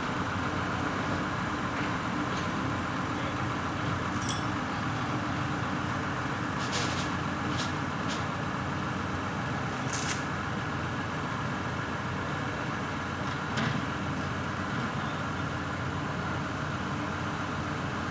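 Heavy diesel engine of a 180-tonne crane running steadily while the crane swings a car body into position. A few brief sharp sounds stand out, the loudest about ten seconds in.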